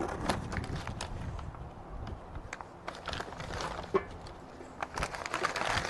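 Irregular light clicks and taps of sausages being laid onto a charcoal kettle grill's metal grate, over a low steady rumble.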